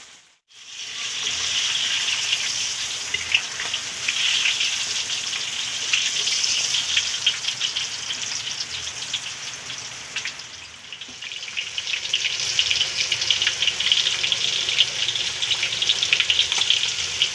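Pieces of patin catfish frying in hot oil, a dense sizzling crackle with many small pops. It eases off about ten seconds in, then builds up again.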